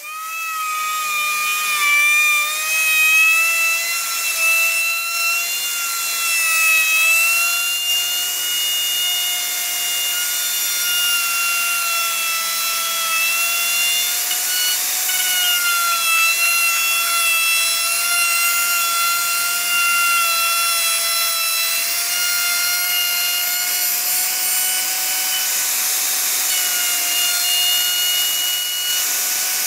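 Handheld electric plunge router running with a steady high whine, its straight bit cutting into a wooden board; the pitch wavers slightly as the bit takes the cut.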